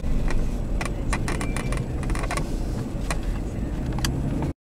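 Vehicle driving slowly, a steady low road-and-engine rumble with scattered irregular clicks and rattles. It cuts off abruptly near the end.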